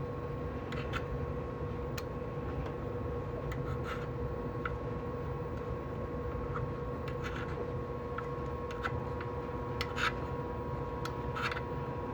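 Light, scattered clicks and small scrapes of a hex key working the screws on a 3D printer's shipping-lock bracket, over a steady faint hum.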